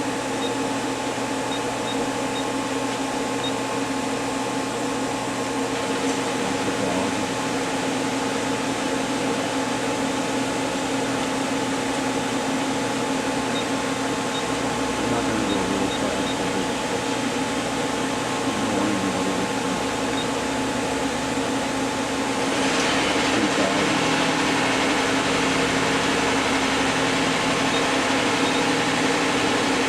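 Powered-up Okuma CNC lathe running with a steady mechanical hum and several held tones. A low drone joins about halfway, and about three-quarters of the way through a louder hiss comes in and stays.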